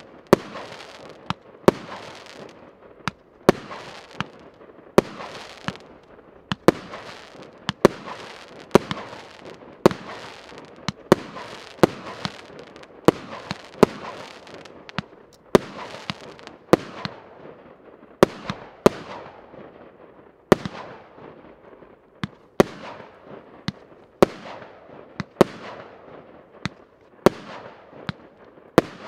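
Piroff 'Ivanhoe' 200-shot, 1-inch consumer fireworks cake firing continuously: sharp bangs about one to two a second, each followed by a short fading hiss.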